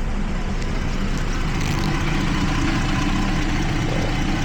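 Jeep Liberty V6 engine idling steadily, with cylinder number 1 misfiring again.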